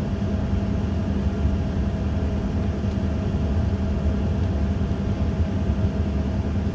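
Steady low drone inside an Embraer E145 airliner's cabin on the ground before takeoff, with a constant hum holding a few even tones and no changes.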